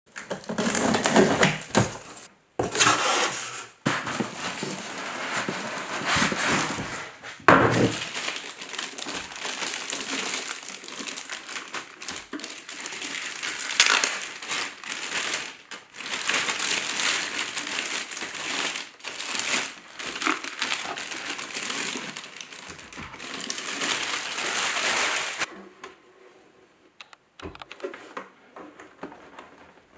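Packaging being unpacked by hand: a cardboard box and a clear plastic bag crinkling, rustling and crunching, with frequent sharp crackles. After about 25 seconds it goes much quieter, with a few light clicks as a power cord is fitted into the printer.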